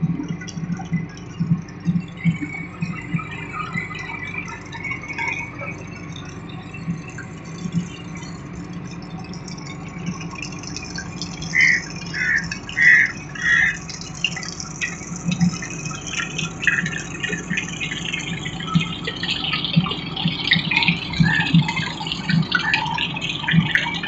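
Water from a river pumping pipeline splashing and trickling over a low, steady, pulsing hum. A few short high chirps come about halfway through, and the splashing grows busier in the second half.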